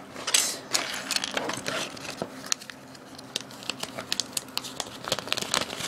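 Small plastic Mega Bloks pieces and their plastic packaging being handled: scattered light clicks and rattles with some crinkling.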